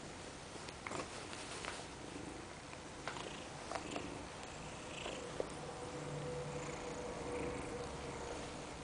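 A kitten purring steadily while being stroked, with a few small clicks and rustles.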